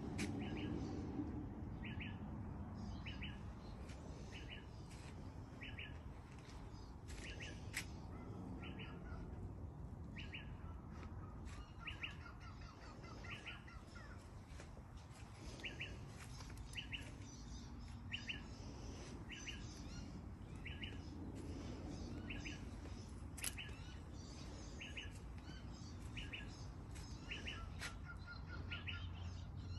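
A bird repeating a short high chirp about once a second, now and then in pairs, with a brief lower twittering trill twice.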